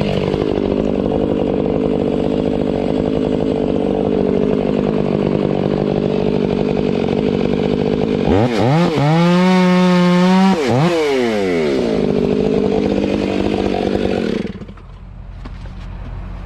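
Chainsaw engine running at idle, revved sharply to full throttle about eight seconds in, held for a couple of seconds, then let back down to idle. The sound cuts off abruptly near the end.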